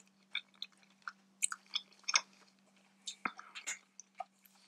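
A person chewing a mouthful of salad: a scatter of short, wet clicks and crunches from the mouth.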